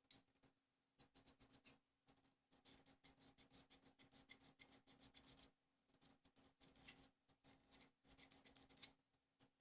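A small piece of 600-grit sandpaper rubbed quickly back and forth on the metal battery contacts of a digital camera's battery door: faint, rapid dry scratching in four or five bursts, polishing off oxidation.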